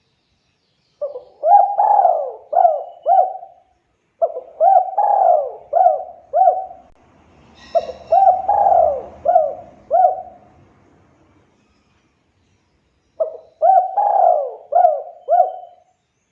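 Spotted dove (tekukur) cooing: four repeated phrases of about five quick notes each, with a longer pause before the last phrase.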